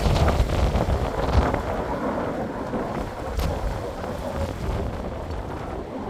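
Strong wind buffeting the microphone with a low rumbling, over the wash of sea surf breaking on rocks. The gusts are heaviest in the first second or so, then ease a little.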